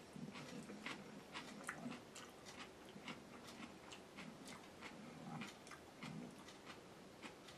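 Near silence: quiet room tone with faint, scattered small clicks.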